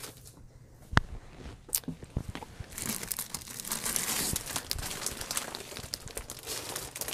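Plastic packaging of cross-stitch kits crinkling and rustling as they are handled off-camera. There is one sharp click about a second in, and the rustling gets busier from about three seconds in.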